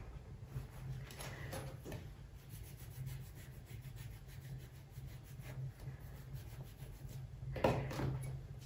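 Kitchen knife scraping the crust off a bread roll and cutting it into chunks on a wooden cutting board: faint rasping strokes, with a louder one near the end.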